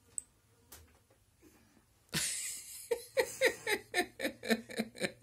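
About two seconds in, a person bursts out laughing: a loud breathy gust, then a fast run of short giggles, about six a second.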